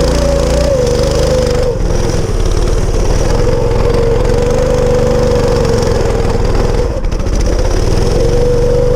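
Small go-kart engine running fast and fairly steadily close by, its pitch wavering slightly, with brief dips in speed about two seconds in and again near seven seconds.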